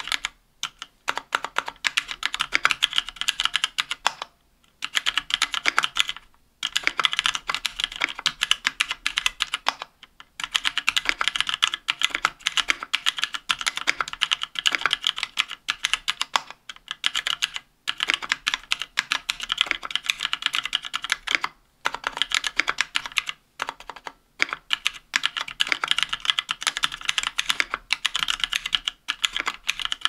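Fast typing on a KBDfans Tofu 60% aluminium mechanical keyboard with stock Kailh Speed Silver linear switches and GMK keycaps: a rapid stream of key clacks, broken by brief pauses every few seconds.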